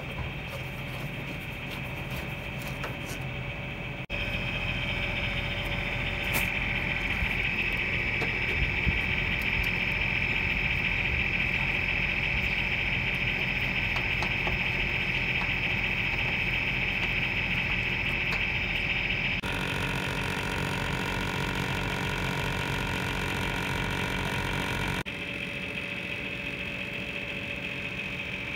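Daikin air-conditioner outdoor unit running with its newly replaced fan motor: a steady machine hum with a high, even whine over it. The sound shifts suddenly a few times, at about four seconds in, around nineteen seconds and around twenty-five seconds.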